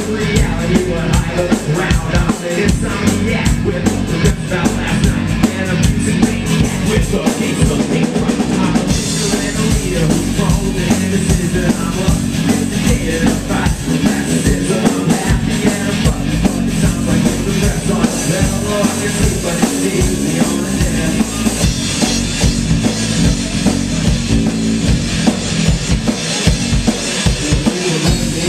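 Rock band playing live, an instrumental passage with the drum kit to the fore keeping a steady beat.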